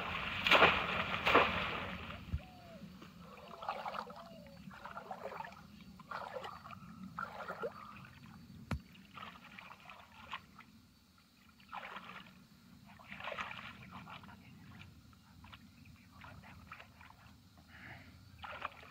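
Bamboo polo fish traps slammed down into shallow pond water, several heavy splashes in the first two seconds. Then quieter, scattered sloshing and splashing as hands grope inside the traps for fish.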